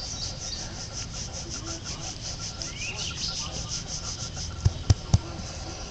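An insect calling in grass with a fast, even rasping pulse, about seven pulses a second. A bird's short rising chirp comes about three seconds in, and three thumps come close together near the end.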